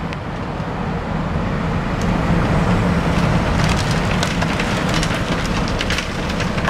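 Excavator engine running steadily, with sharp cracks and snaps of splintering wood from the demolition, most of them between about three and a half and six seconds in.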